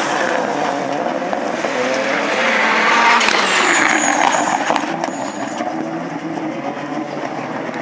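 Peugeot 208 rallycross Supercar's turbocharged engine running hard through a loose dirt corner and accelerating away, its pitch rising and falling with the revs. A brief high whine sounds twice around the middle.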